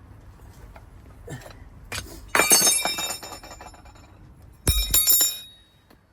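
Metal tools clanking together and ringing, in two quick runs of strikes: one about two and a half seconds in and another near five seconds.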